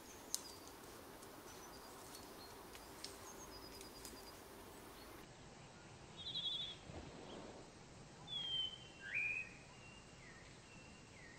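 Wild birds calling over quiet outdoor ambience: thin, short high calls in the first half, then a quick trill about six seconds in and a few louder downward-sliding calls near the end.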